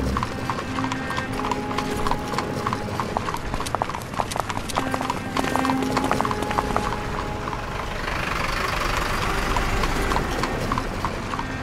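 Horses' hooves clip-clopping, as from horse-drawn carriages: a quick, uneven patter of many overlapping strikes. A rushing hiss swells in the last few seconds.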